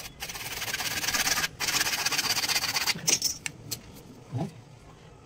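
Hacksaw cutting through a plastic water pipe: a rasping sawing sound that grows louder, breaks off briefly about one and a half seconds in, and stops about three seconds in. A few clicks and a knock follow as the pipe is handled.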